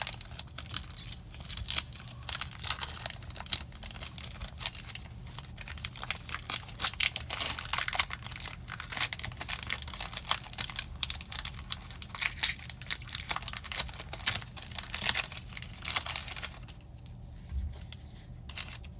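Plastic foil wrapper of a Magic: The Gathering booster pack being torn open and crinkled: a long run of irregular crackles that dies away near the end.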